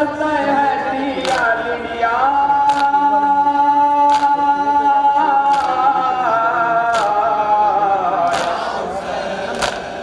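A group of men chanting a nauha, a Muharram mourning lament, in unison over a microphone, holding one long note through the middle. Sharp chest-beating strikes of matam keep a steady beat about every one and a half seconds.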